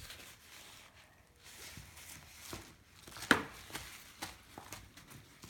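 Fluffy slime being squished and kneaded by hand on a paper-covered tabletop: soft, irregular crackling and small pops, with one sharper click a little past halfway.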